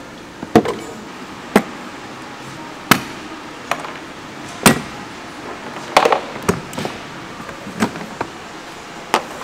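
Sharp clicks and knocks of plastic engine-bay trim being unclipped and handled, about ten at irregular intervals.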